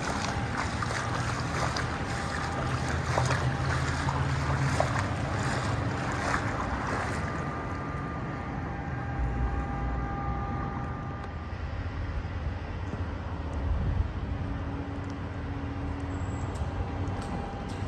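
Wind buffeting the microphone as a steady low rumble, rougher and crackly for the first several seconds and then settling.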